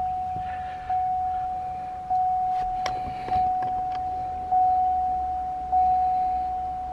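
Warning chime of a 2007–2013 Chevy Avalanche with the ignition switched on: a single steady ding repeating about every 1.2 seconds, each one fading before the next. A few sharp clicks come about three seconds in.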